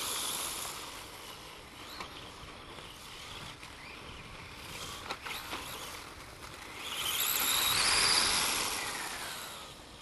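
Radio-controlled electric motorcycle's brushless motor whining as the bike runs over grass. The whine swells and rises in pitch about seven seconds in, is loudest around eight seconds, and then fades.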